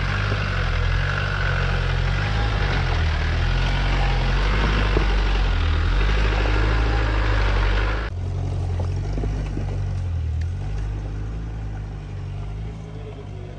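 Engine of an old Land Rover 4x4 running at low revs under load as it crawls up a rocky trail, its pitch rising and falling, with occasional sharp clicks of stones under the tyres. About eight seconds in, the sound drops suddenly to a quieter, more distant engine note.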